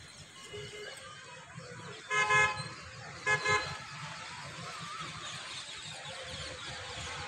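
A vehicle horn honks, once for about half a second around two seconds in, then again about a second later as two quick short toots, over steady traffic noise.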